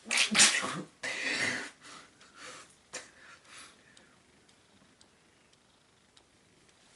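A person sneezing hard: two loud bursts with some voice in them over about the first two seconds, followed by a few short, quieter noises.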